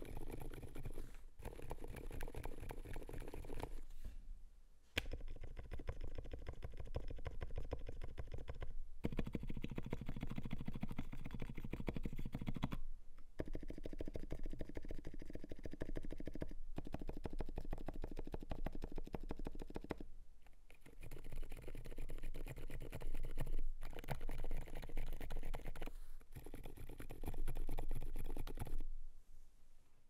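Gopolar GG86 mechanical keyboard with lubed silent Alpaca linear switches on a polycarbonate plate and OSA keycaps, typed on fast in a dense, continuous run of keystrokes. The typing breaks off briefly every few seconds and fades out near the end.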